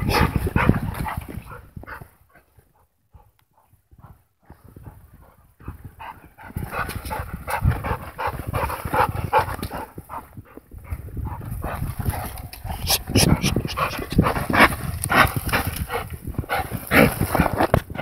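American pit bull terrier sniffing and breathing close to the microphone, in quick irregular short puffs. There is a quieter lull about two to six seconds in.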